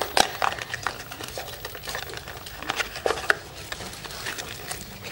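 Small cardboard box being handled by fingers and its end flap pried open: irregular light scrapes, taps and clicks of cardboard.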